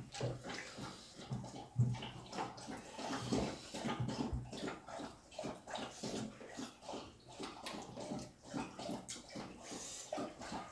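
Wet, irregular chewing and lip-smacking sounds of people eating goat meat and rice with their hands, many small smacks and clicks close to the microphone.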